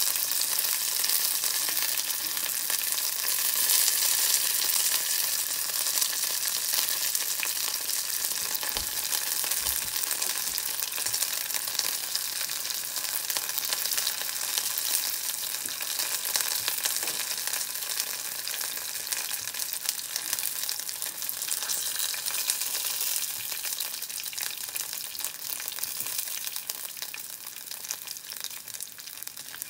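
Green pepper pieces sizzling in a thin layer of hot oil in a frying pan: shallow pan-frying rather than deep-frying. A steady hissing crackle that slowly grows quieter toward the end.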